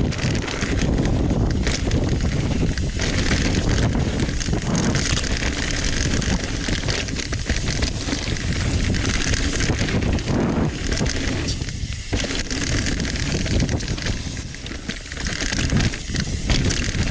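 Mountain bike riding fast down a dirt trail: tyres rolling over the ground and the bike rattling and knocking over bumps, under a steady rush of noise.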